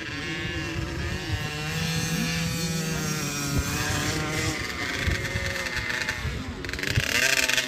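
Small dirt bike engine revving up and easing off again and again as it is ridden around a dirt track. Its pitch rises and falls with the throttle, and it grows louder near the end as the bike comes closer.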